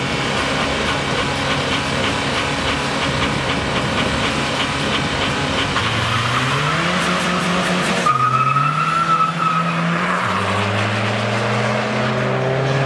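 Two drag-race cars on the start line, engines held at high revs with a fast crackle, then launching about six seconds in and accelerating hard down the strip. Engine pitch climbs and drops at each gear change, twice.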